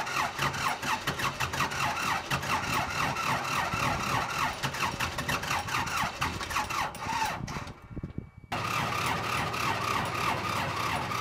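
Ford 555 backhoe's four-cylinder diesel engine starting up and running with a fast, uneven pulsing beat. After a short break about eight seconds in, it runs on more steadily at idle.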